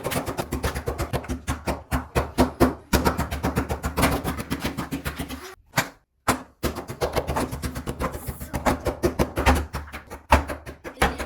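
Rapid run of sharp taps or clicks, several a second, over a steady low hum, with a brief break about six seconds in.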